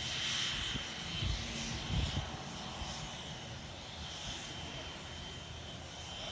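Business jet's engines running at taxi power, a steady jet whine with a constant high tone. A couple of low rumbles come about one and two seconds in.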